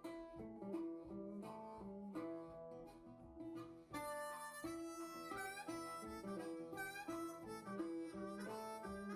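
Background music: plucked acoustic guitar, joined about four seconds in by a harmonica playing a bluesy line.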